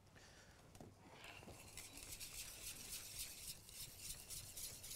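Wire whisk beating thickening semolina polenta in a stainless steel saucepan: faint, quick scraping strokes that begin about a second in.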